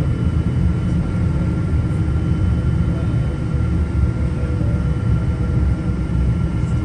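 Cabin noise inside a Boeing 777-200ER taxiing at low power: a steady low rumble with a thin, steady whine over it. The level holds even, with no spool-up for takeoff.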